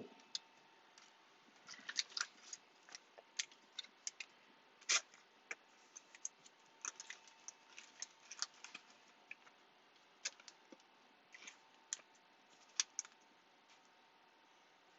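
Trading cards being handled and flipped through by hand: irregular light clicks and snaps of card stock, a few at a time, over a faint steady hum.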